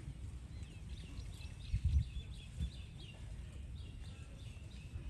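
Birds chirping in a quick series of short, high calls over a steady low rumble, with a couple of dull bumps about two seconds in.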